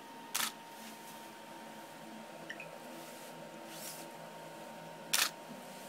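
Two camera shutter clicks, one shortly after the start and one near the end, the second a quick double click. A faint, steady high tone runs underneath.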